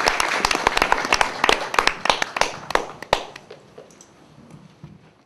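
Audience applauding with dense clapping that thins out and fades away over the last two seconds.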